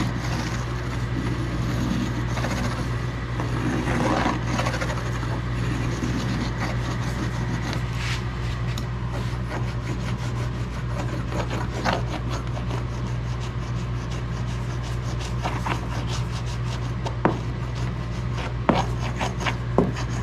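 Hand laminating roller rolled back and forth over peel ply on a wet carbon-fiber layup, a repeated rubbing with small clicks that come more often in the second half, over a steady low hum. The rolling pulls excess resin up through the peel ply to wet it out.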